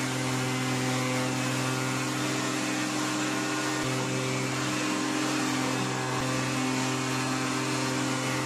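Combination jointer-thickness planer running under load, its cutterhead planing a glued-up walnut and pine board and throwing off shavings. The motor gives a steady hum under a loud hiss of cutting.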